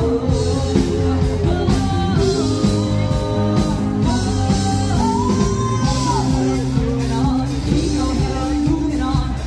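Live band playing rock music with a singer, amplified, over a steady beat.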